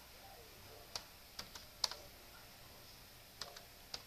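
Computer keyboard keys clicking as text is typed: about seven separate keystrokes at an uneven pace, faint, bunched about a second in and again near the end.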